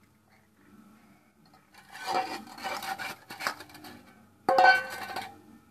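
Metal dishes being washed by hand on a wet concrete slab: a plate rubbed and scraped with the fingers through the middle, then a sudden, louder metallic clatter of a steel bowl about four and a half seconds in.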